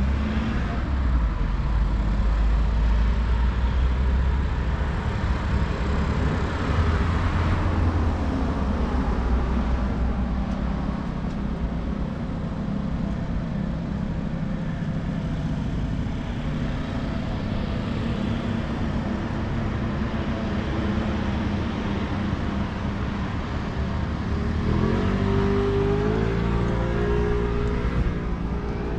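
Off-road vehicle engine running steadily at idle, heaviest in the first several seconds. Near the end it is revved, rising in pitch a few times.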